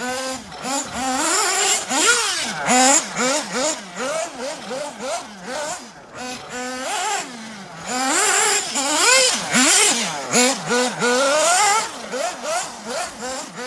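Kyosho Inferno MP9 TKI4 nitro RC buggy's small nitro engine revving up and down in quick bursts as it is driven, its pitch sweeping rapidly up and down. A rushing hiss joins in during two longer stretches of throttle, a second or so in and again from about eight to twelve seconds.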